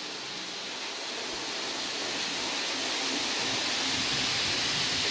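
Roco H0 model trains running on the layout's track: a steady rushing noise of wheels and motors that grows gradually louder as they come nearer.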